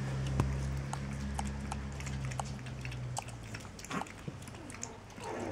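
Seven-week-old chihuahua puppies on a tiled floor making small, irregular clicks and taps of claws and mouths, over a low hum that stops about three seconds in.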